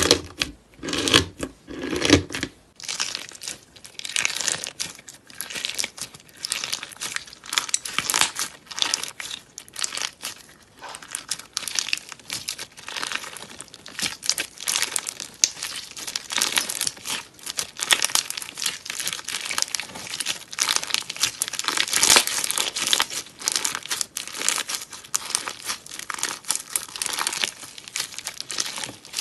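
Slime being squeezed, poked and stretched by hand, giving a dense run of rapid crackles and small pops throughout, fuller and heavier in the first couple of seconds.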